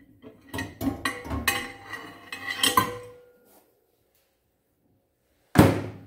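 Metal wire grill rack and ceramic baking dish clinking and clattering as they are lifted out of a microwave, followed by a pause, then one loud knock near the end as the rack is set down on a wooden countertop.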